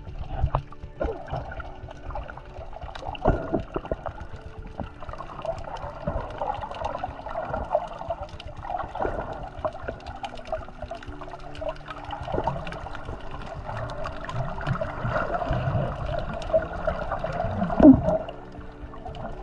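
Muffled water gurgling and sloshing, recorded with the microphone underwater, uneven and swelling and fading. A louder single knock or splash comes near the end.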